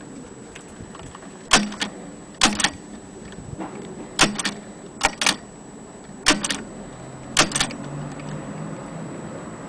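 Antique 1927 Mignon index typewriter being typed on: six sharp double clicks, about a second or so apart and slightly uneven in rhythm.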